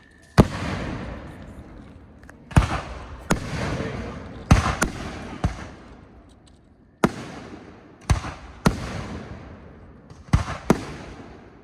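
Aerial fireworks bursting overhead: about eleven sharp bangs at irregular intervals, some in quick pairs. Each bang trails off over a second or so.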